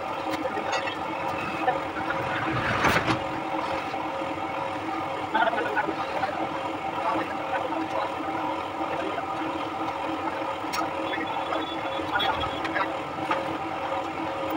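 An engine running steadily at a constant pitch, with a few short knocks from hand work on a loose tyre, the loudest about three seconds in.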